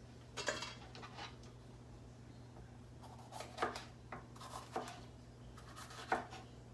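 Ceramic kitchen knife cutting bell peppers on a cutting board, with a handful of short, uneven knocks of the blade against the board.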